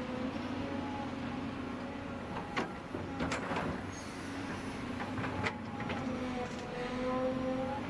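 Volvo EC210BL excavator's diesel engine running under hydraulic load, its hum and whine rising and falling a little as the boom and bucket work. Several sharp metallic clanks come from the bucket and linkage around the middle.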